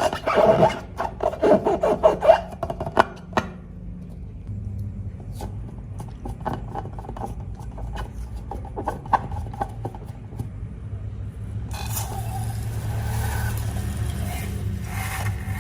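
Slime being worked by hand: a quick run of sticky clicking and crackling, then scattered clicks, then a steady scraping, rubbing noise from about twelve seconds in.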